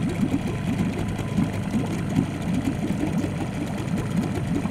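Small boat's outboard motor running steadily at low speed while trolling, a fast even hum.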